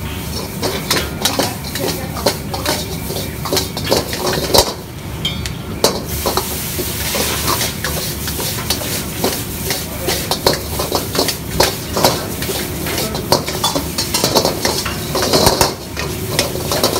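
Metal ladle clanking and scraping against a carbon-steel wok as Hakka noodles and vegetables are stir-fried and tossed, with the food sizzling. There are many quick, uneven clanks over a steady low rushing noise, and the sizzle gets louder for a few seconds around the middle.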